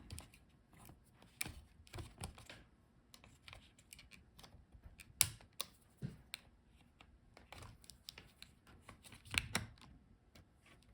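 Light, scattered clicks and taps as the cover over a laptop's RAM slots is handled and taken off, with a sharper click about five seconds in and a small cluster just past nine seconds.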